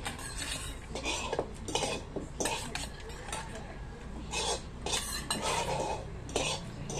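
Metal spoons scraping and clinking against a small stainless steel pot and ceramic dishes as food is scooped out, in repeated, irregular strokes.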